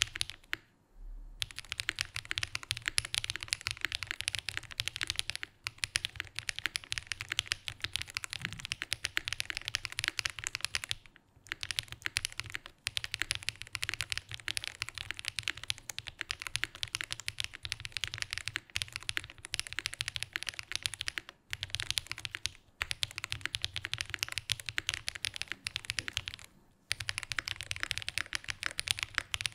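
Continuous fast typing on a Kyuko80 prototype mechanical keyboard: an aluminium case with a polycarbonate plate and stock Gateron Pureberry switches. A rapid stream of key clacks with a low thock under them, broken by a few short pauses.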